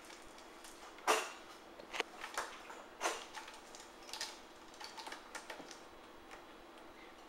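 A kitten's claws scratching and catching on a sisal-rope scratching post, with irregular scrapes and taps. The loudest scrape comes about a second in, then smaller scattered ticks.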